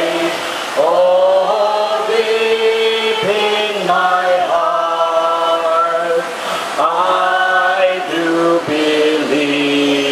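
A group of people singing a slow song together, with long held notes that glide from one pitch to the next.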